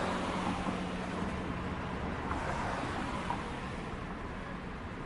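City street traffic: a steady rush of vehicle noise, with a low engine hum through the first two seconds or so.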